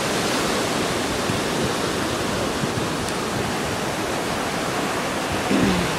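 Ocean surf washing up and draining back over a sandy beach: a steady rushing hiss. A brief low tone sounds about five and a half seconds in.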